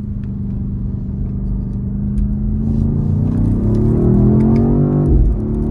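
BMW XM's twin-turbo V8 heard from inside the cabin over road rumble. It pulls steadily, then rises in pitch from about halfway as it accelerates, and drops abruptly with an upshift near the end.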